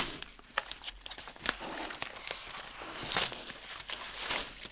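A cardboard shipping box being handled and its flaps pulled open by hand: irregular soft scrapes, rustles and taps, with a denser scuffling patch a little past three seconds in.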